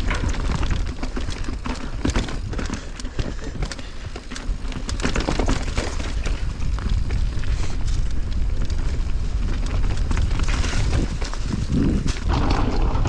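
Mountain bike descending a rocky downhill trail at speed: wind rumbles on the microphone, with frequent sharp clicks and clatter from the bike rattling over rocks.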